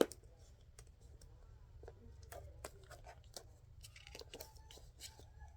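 Faint irregular crinkling and clicking of a plastic Ziploc bag and tape strips being handled and cut, over a low steady hum.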